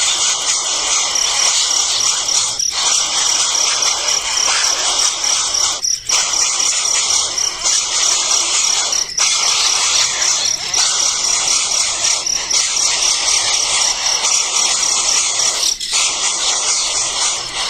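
Nestlings begging with a dense, continuous high-pitched chirping, over a steady, rapid high trill; the sound briefly drops out about four times.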